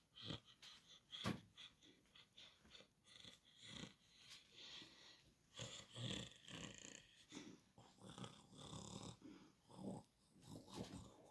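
Faint, irregular short sounds from an unseen animal, coming every second or so.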